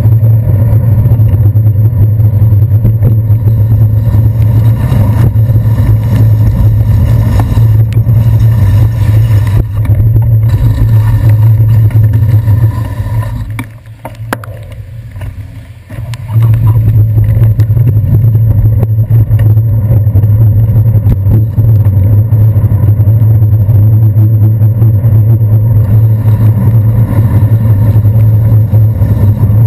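Loud, steady low rumble of wind and road vibration on a bicycle handlebar-mounted GoPro Hero 2 while riding on wet city streets. It falls away for about three seconds a little before the middle, as the bike stops at a crossing, then comes back as riding resumes.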